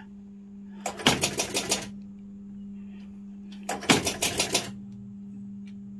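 1974 Gottlieb Big Indian electromechanical pinball machine scoring: two quick runs of about six rapid mechanical clicks each, about three seconds apart, as relays and score reels step. A steady electrical hum underlies them.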